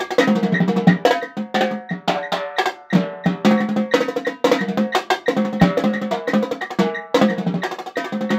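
Marching tenor drums played solo with sticks: fast strokes moving around the tuned drums, with a steady roll on one drum held for about a second two-thirds of the way in, then a sharp accent.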